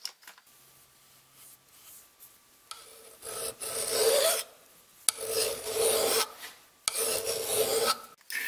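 Flat hand file rasping along the steel edge of a GRIP 1.25 lb camping hatchet in three long strokes, starting about three seconds in: the edge being filed sharp by hand.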